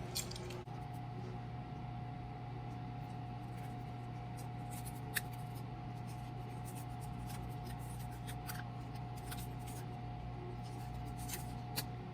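Faint rubbing and rustling with scattered small clicks as thread seal tape is wrapped around a threaded toilet-supply fitting to seal it against leaks, over a steady low hum.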